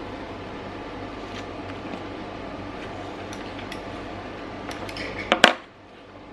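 Light scattered clicks and clinks of small hard objects being handled, ending in a louder double clack about five seconds in, over a steady hiss that drops away just after it.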